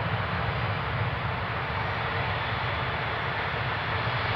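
Boeing 737-8 on final approach, its CFM LEAP-1B turbofan engines heard at a distance as a steady, even rush with a low rumble beneath.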